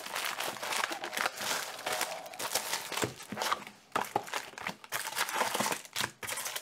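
Wrapped trading card packs crinkling and rustling as they are handled and pulled out of a cardboard hobby box, in an irregular run of crackles and scrapes.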